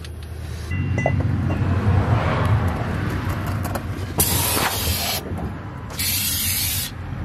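Two hissing sprays from an aerosol can, each about a second long and about a second apart, over a steady low rumble and a few light clinks of metal parts.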